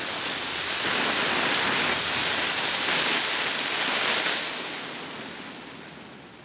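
Standard Fireworks Traffic Cones fountain hissing steadily as it sprays silver sparks. It gets louder about a second in, then fades away over the last two seconds as the fountain burns out.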